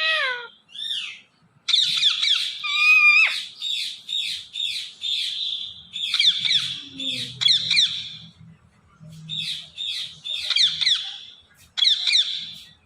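Ringneck parrot chattering and squawking: rapid runs of harsh, screechy notes in several bouts with short pauses, and a brief held whistled note about three seconds in.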